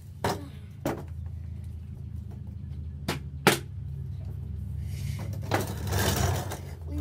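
A wicker patio chair being handled and moved: four sharp knocks, the last and loudest about three and a half seconds in, then a rustling scrape near the end.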